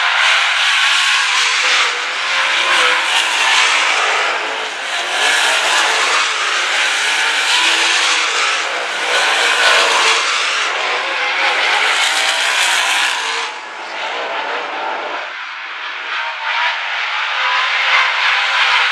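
WISSOTA Late Model V8 dirt-track race cars running hard around the oval, the engine noise swelling and fading as the cars pass, with a brief lull about fourteen seconds in.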